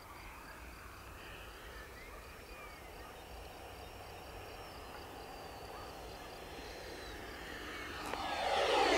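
Electric ducted fan of an RC model jet, a 70 mm fan driven by an inrunner motor: faint and distant at first, then swelling about eight seconds in as the jet approaches.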